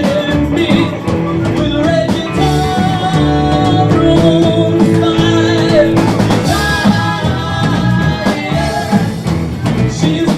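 Live rock band playing an instrumental passage, with a drum kit keeping a steady beat under guitar and held notes.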